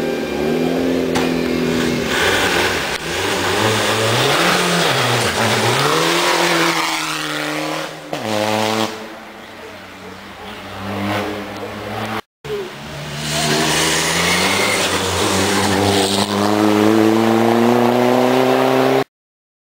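Volkswagen Golf IV hill-climb race car's engine revving hard as it accelerates up the course, pitch climbing and dropping with each gear change. After a brief cut about twelve seconds in, the engine is heard again pulling with a long, steady rise in pitch, then the sound stops suddenly.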